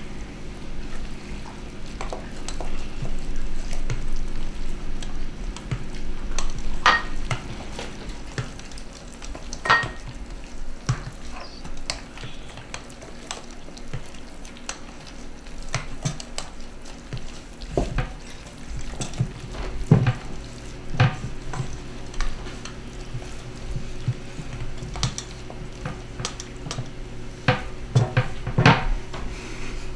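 A spoon stirring and scraping a thick, lumpy meatloaf mixture in a mixing bowl, with irregular knocks of the spoon against the bowl and two short ringing clinks.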